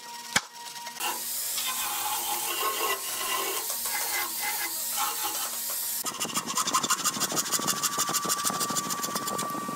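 A couple of sharp metal clicks, then a small handheld electric sander running against hardwood. About six seconds in, it changes to a fast, rhythmic scraping.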